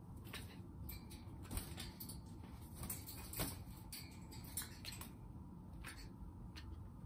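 Amazon parrot flapping its wings on its perch: a run of irregular sharp taps and rattles, with two louder knocks about one and a half and three and a half seconds in.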